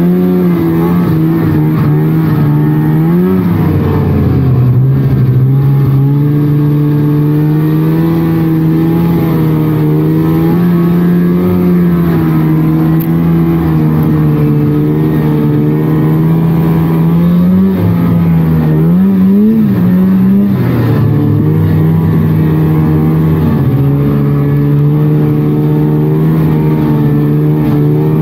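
1999 Polaris Trail snowmobile's two-stroke engine running under way at a fairly steady pitch. Brief throttle surges raise the pitch about three seconds in and again about two-thirds of the way through.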